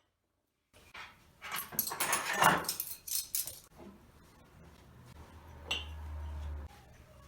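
Kitchenware being handled: a burst of clinks and clatter lasting about two seconds, followed by quieter handling and a low hum.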